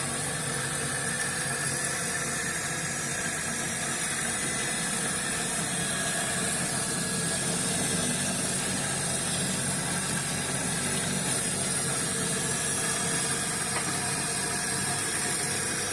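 A homemade lathe-milling machine running steadily, its motor giving an even hum and whir with no starts, stops or changes in speed.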